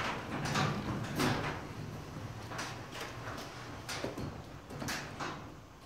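LiftMaster garage door opener running, its motor humming steadily as it moves a high-lift sectional garage door, with a series of clicks and knocks from the door's hardware along the track. The sound fades away near the end.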